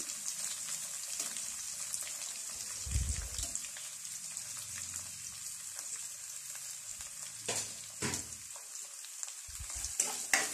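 Chopped onions sizzling in hot oil in a non-stick kadai, a steady high frying hiss. In the last few seconds a few sharp clicks come as a spatula starts stirring the onions.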